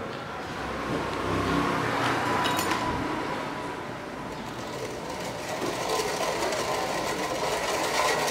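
A metal ladle stirring and swishing water in a stainless steel pot, over a steady engine-like rumble that is strongest a second or two in.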